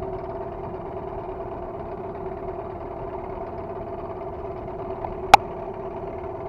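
Small boat outboard motor idling with a steady hum, and a single sharp click about five seconds in.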